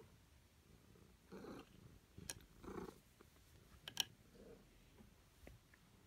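Domestic cat purring faintly, in soft swells about every second and a half, with two sharp clicks in between.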